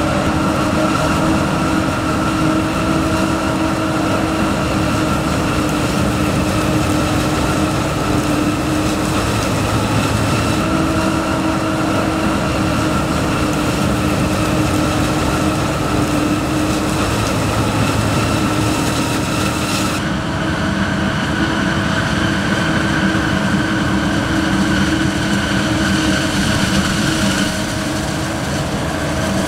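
John Deere 9900i self-propelled forage harvester chopping maize at full working speed, its engine and chopper giving a loud, steady mechanical drone with several held tones. The tractor hauling the silage wagon runs alongside. The tone shifts abruptly about two-thirds of the way through.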